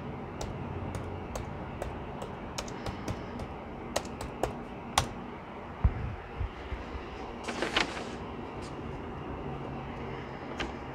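A run of light, irregular clicks and taps over a low steady hum, with a soft thump about six seconds in and a short rustle a little later.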